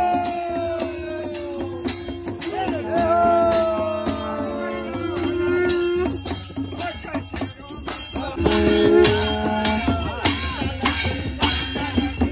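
Traditional Pahadi procession band playing: drums and a hand cymbal beating a quick rhythm, over steady held drone notes and a falling melody from a wind instrument. The drone drops out briefly about halfway through and comes back.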